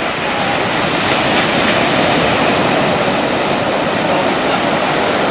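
Small waves breaking and washing up the beach, a steady rush of surf.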